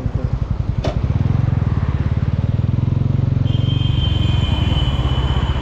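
TVS Ronin 225's single-cylinder engine running steadily at low speed, its firing pulses even and quick. A sharp click comes about a second in, and a thin high steady tone joins for the last two seconds.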